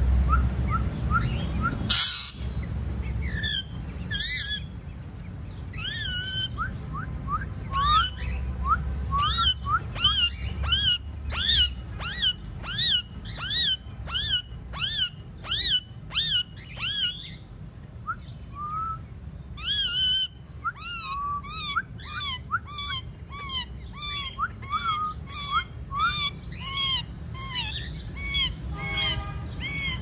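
Ringneck parakeets calling in a long run of short, high, repeated screeches, about two or three a second, with a pause of a couple of seconds partway through. A steady low rumble lies underneath, and there is one sharp knock near the start.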